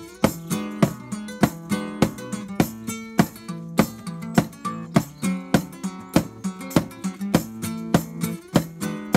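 Acoustic guitar strummed in a country rhythm over an even, steady percussive beat. No voice.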